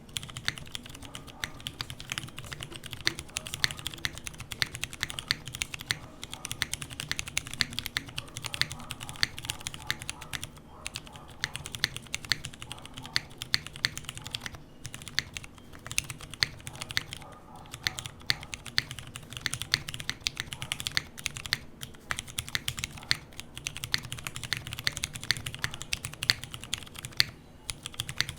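Fast continuous typing on a Smith + Rune Iron165 mechanical keyboard with Cherry MX Clear tactile switches (lighter springs, lubed and filmed), a carbon fiber plate and GMK keycaps, with a few brief pauses between bursts of keystrokes.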